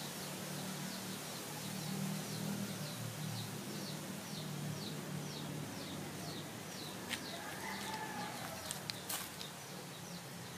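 Water churning in a koi tank under a steady low hum, with a short high chirp from a small animal repeated about two to three times a second; the chirping stops about three-quarters of the way through, and a few sharp clicks follow near the end.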